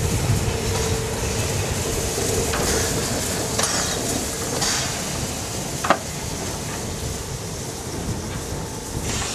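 Narrow-gauge steam tank locomotive 99 7239-9 moving slowly, with steam hissing from its cylinder drain cocks and a few puffs about a second apart. A single sharp click comes about halfway through.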